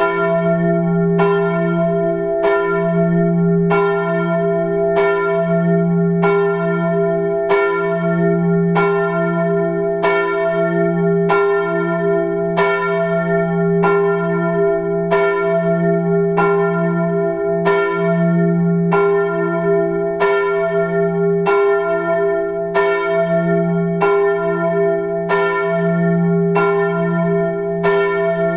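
A single church bell tolling steadily, struck at an even pace of a little under one stroke a second. Each stroke rings on into the next, so the hum never dies away.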